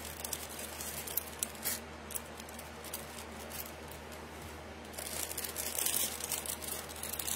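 Light rustling and scattered small clicks from jewelry being handled and moved about close to the microphone, over a steady low hum.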